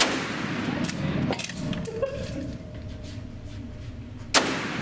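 Two rifle shots, one right at the start and a louder one about four and a half seconds in, each with a short echo, and a fainter knock about a second in.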